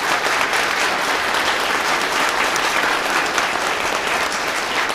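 Audience applauding: many people clapping together in a steady, loud patter that holds throughout.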